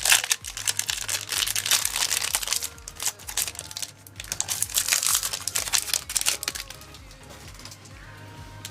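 Foil booster pack wrapper crinkling and tearing as it is handled and opened, in dense crackling runs that die down after about six and a half seconds.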